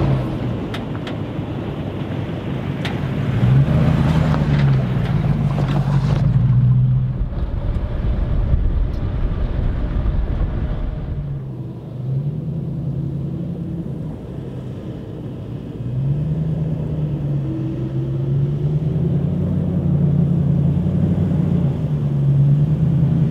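A vehicle's engine running while driving, its revs rising and falling again and again. A hiss of wind noise with scattered clicks over the first six seconds stops abruptly.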